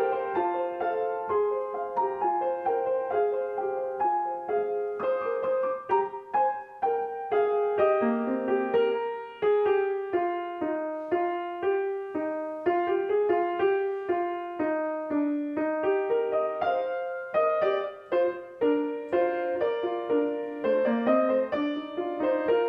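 Piano music: a continuous run of single notes and chords.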